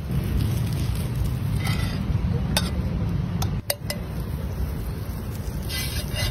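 A few light clinks of a metal utensil against cookware: one about two and a half seconds in, then three in quick succession around three and a half seconds. A steady low rumble runs underneath.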